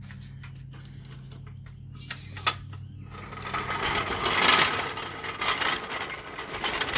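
Lift jack mechanism clicking and rattling as the ATV is let down off it, with a single click about two and a half seconds in and the rattling loudest a second or two later.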